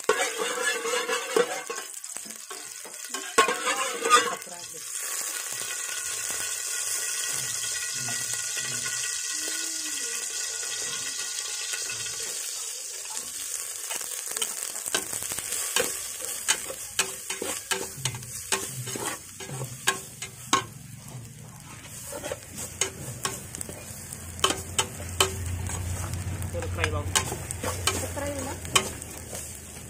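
Hot oil sizzling in a metal pot. About halfway through, pounded lemongrass spice paste drops in and fries, and a metal ladle scrapes and clicks against the pot as it is stirred.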